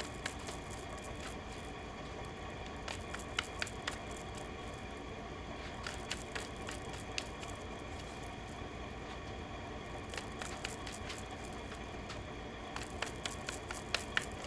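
Steady low room hum with scattered light clicks and taps, coming a few at a time.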